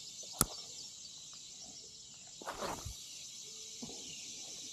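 Steady chorus of insects buzzing, with a sharp click about half a second in and a brief rustle about midway.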